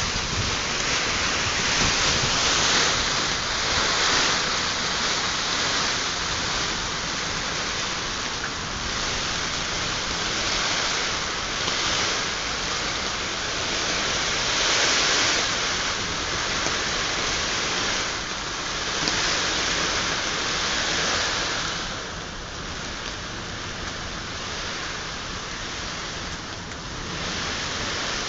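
Heavy rain and gusting wind of a nor'wester storm: a dense, steady rushing hiss that swells every few seconds with the gusts and eases a little in the last quarter.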